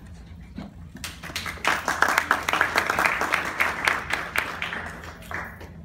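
Small audience applauding, building up about a second in and dying away near the end.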